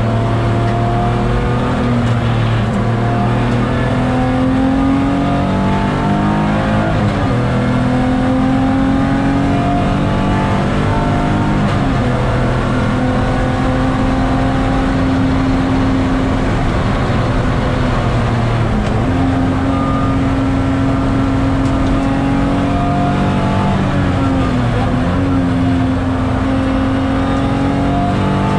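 BMW E46 330's straight-six engine heard from inside the cabin under hard track driving. The engine note holds or slowly climbs, then drops sharply about four times, over constant road and wind noise.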